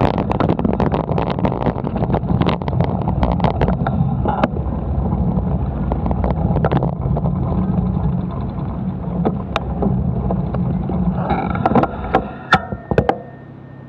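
Riding noise from a camera mounted on a moving bicycle: a steady low rumble of wind and traffic with frequent small clicks and rattles from the bike and its mount, quieter near the end.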